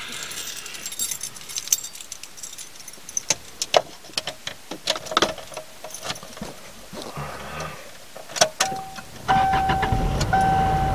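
Car keys jangling and clicking, then about nine seconds in the car's engine starts and keeps running while a dashboard warning chime beeps repeatedly, about once a second.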